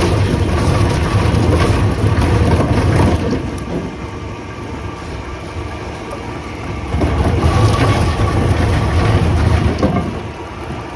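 Wood peeling machine (rotary veneer lathe) running, with a loud rough rumble and hiss that drops back for a few seconds in the middle and swells again, as it cuts into a log.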